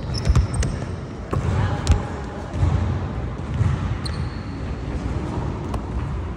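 A basketball being dribbled on an indoor gym court, several sharp bounces in the first two seconds, with brief squeaks of sneakers on the floor.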